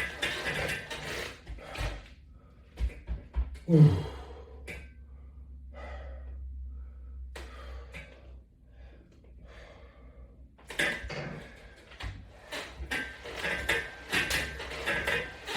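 Resistance-band exercise equipment clicking and rattling as straps and attachments on a latch bar are worked through reps, with a short loud sound falling in pitch about four seconds in. It goes quieter for several seconds in the middle, then the clicking and rattling start again.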